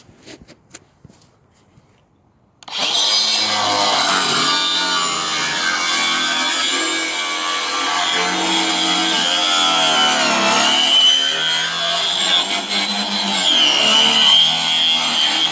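A few light clicks, then about three seconds in a DeWalt 18V cordless angle grinder with a 4.5-inch wood-cutting blade starts and saws steadily through timber cladding boards. Its high whine dips in pitch twice, once in the middle and once near the end, as the blade is loaded in the cut.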